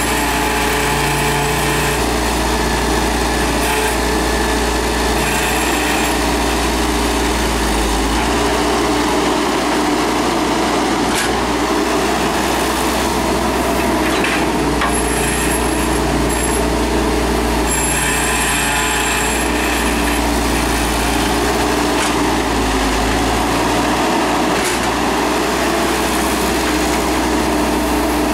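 Wheeled mini excavator's diesel engine running steadily while it digs, with a higher whine that comes and goes every few seconds.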